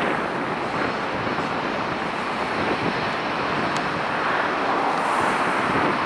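Airbus A321neo's Pratt & Whitney geared turbofan engines running, a steady jet roar as the airliner rolls away down the runway.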